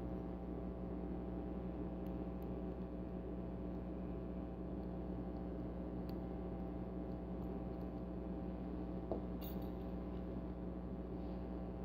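Steady electrical hum with a few faint metallic clicks and clinks as a pin-tumbler lock cylinder and small tools are handled; the sharpest click comes about nine seconds in.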